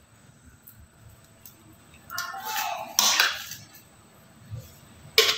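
Small metal offset spatula scraping across chocolate ganache on the side of a cake, with a few short scrapes against the cake or turntable rim, the sharpest about three seconds in and near the end.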